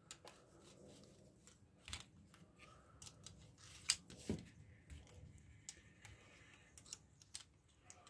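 Scattered faint clicks and taps of small steel hand tools against the brass movement of a Westclox Baby Ben alarm clock and the wooden bench, as a screwdriver and then a pointed gripping tool are worked at a tight pressed-on winding knob. The loudest is a single sharp click a little before four seconds in.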